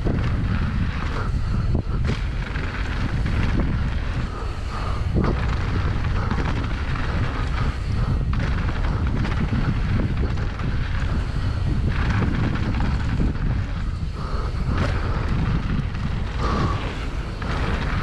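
Wind buffeting the microphone of a camera riding on a downhill mountain bike at speed, a steady low rumble mixed with tyre and trail noise, with scattered knocks as the bike rattles over the rough dirt trail.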